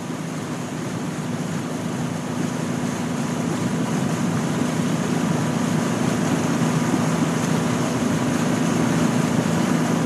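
River boat engine running steadily: a low hum over a broad rushing noise, growing gradually louder.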